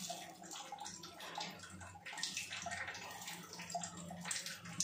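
Pesarattu batter sizzling on a hot cast-iron tawa as a ladle spreads it in circles, with soft scraping of the ladle through the batter.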